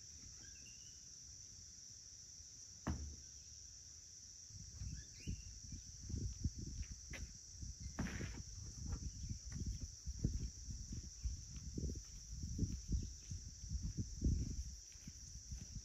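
Steady high-pitched drone of summer insects singing, with irregular low rumbles coming and going from about four seconds in.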